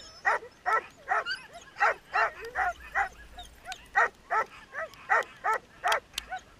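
Sled dogs barking and yipping, short calls coming about two or three a second.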